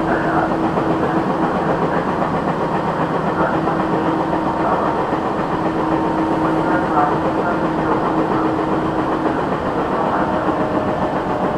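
Tokyu 8500 series electric train running at speed: a steady rumble of wheels on rail with a steady hum from the running gear that drops out briefly a few times.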